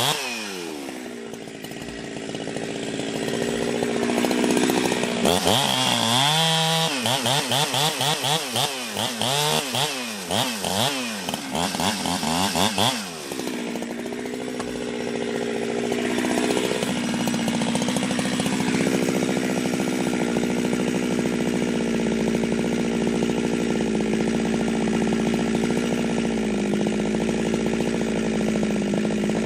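Ported Jonsered 2071 two-stroke chainsaw with an exhaust mod. Its revs fall at the start, then the throttle is blipped up and down several times. About halfway through it settles into a steady idle.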